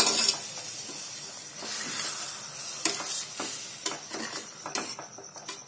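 Water added to hot fried chicken masala in a pressure-cooker pot, sizzling and hissing, then a steel spoon stirring with a string of sharp clinks against the pot from about halfway through.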